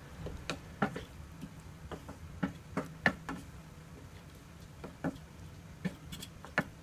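Spatula knocking and scraping against a non-stick pan while stirring chicken curry in a thin gravy: soft, irregular clicks, with a short pause around the middle.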